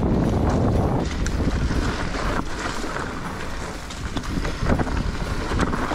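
Wind buffeting the microphone, a dense rumble heaviest in about the first second and then lighter and more hissy.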